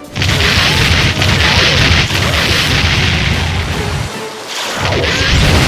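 Loud rumbling roar of noise with a heavy deep low end, a dubbed cartoon sound effect of the boom or explosion kind. It breaks off briefly about four seconds in, then comes back.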